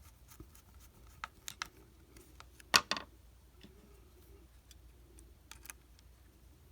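Small sharp clicks and taps of a screwdriver and the walkie-talkie's plastic case being handled as its screws are tightened, the loudest two close together about three seconds in.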